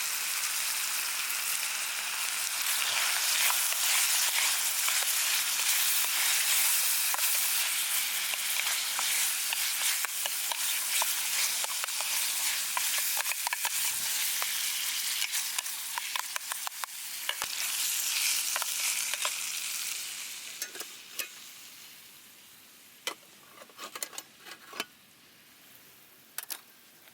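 Ground meat sizzling and crackling in a frying pan as it is stirred. About twenty seconds in the sizzle dies away, leaving a few sharp clicks.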